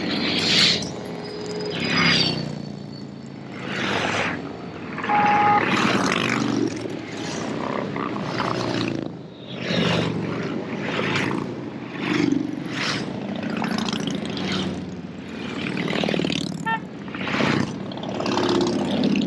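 A stream of motorcycles riding past one after another, each engine and its tyres rising and falling as it goes by, about one bike every second or two.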